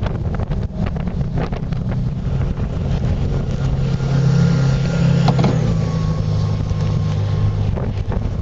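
Boat motor running with wind buffeting the microphone. Its note grows louder about halfway through, then drops to a lower pitch.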